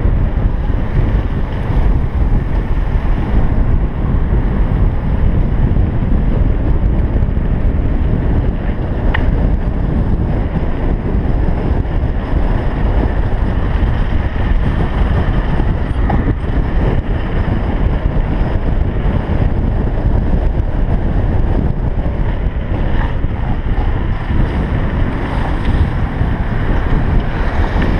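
Heavy wind buffeting a helmet camera's microphone during a fast mountain-bike descent, mixed with the rumble of the bike's tyres over paving stones.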